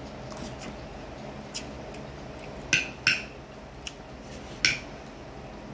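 Cutlery clinking against dishware while eating: two sharp clinks close together about halfway through and a third near the end, among lighter taps.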